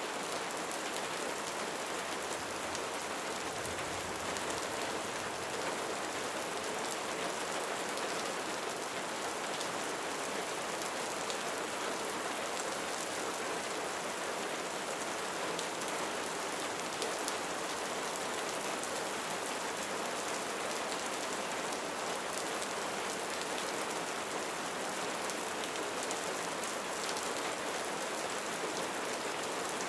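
Steady rain falling on a roof, a continuous even patter of drops.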